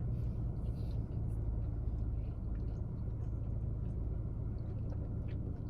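Steady low hum of a parked car's cabin, with the engine or climate fan running. Faint small clicks of chewing on top.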